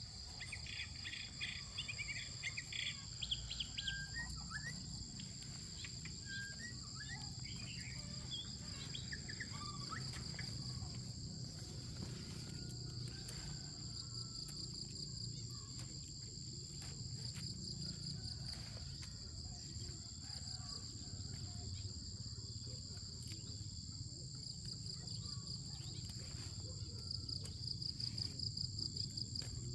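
A steady chorus of insects trilling, with birds chirping over it for the first few seconds and a low steady rumble underneath.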